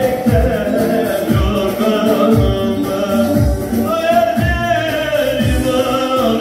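Music with a singing voice over a steady low drum beat, about one stroke a second.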